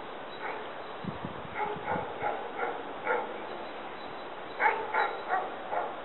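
A dog barking: short, repeated barks in two runs, a loose series over the first three seconds, then four quicker barks near the end. There are a few low thuds early on.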